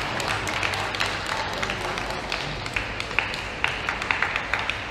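Arena crowd applauding after a point, the clapping fading and thinning out into scattered single claps toward the end.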